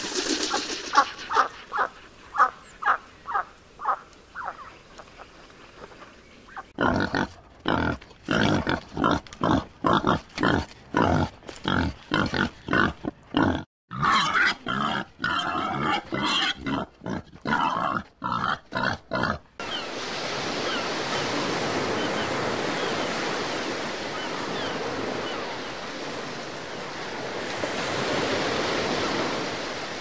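Duck calls repeating about two to three times a second for the first few seconds, then pigs grunting in quick short bursts from about seven seconds in. From about twenty seconds in, a steady rushing noise takes over.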